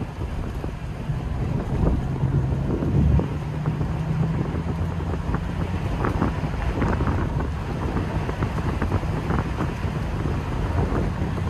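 V8 engine of an open-top TVR burbling as it cruises along, heard from inside the open cockpit with wind buffeting the microphone.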